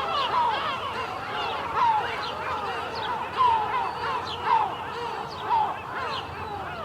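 A flock of gulls calling over one another: many short rising-and-falling cries overlap, and a few louder calls stand out about once a second.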